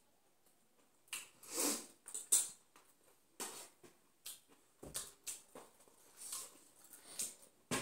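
Close eating sounds of chow mein noodles being chewed and slurped, starting about a second in as a run of short wet smacks, with scattered sharp clicks and taps.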